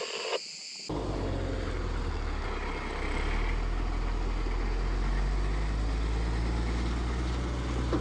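Engine of a forestry fire truck running steadily with a low hum, starting about a second in. A second, slightly higher hum joins about halfway.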